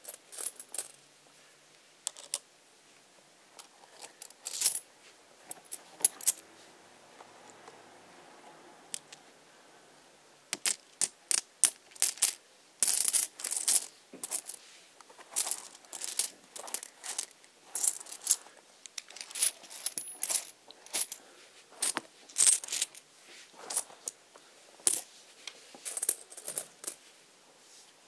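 Many sharp clinks and clicks of small hard objects, a few scattered ones at first, then coming thick and fast from about ten seconds in, some with a short bright ring.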